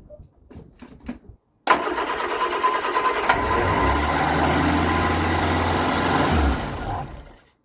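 Vauxhall Viva four-cylinder engine on a newly fitted Weber carburettor catching suddenly after a few light clicks and running fast, racing like the clappers, for about five seconds before it stops.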